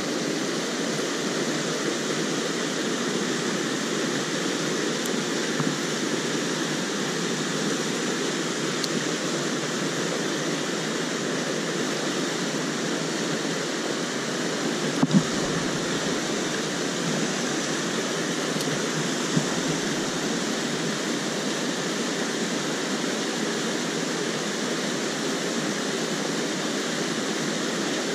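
Mountain stream water rushing steadily over rocks and small cascades. A couple of short knocks stand out about halfway through.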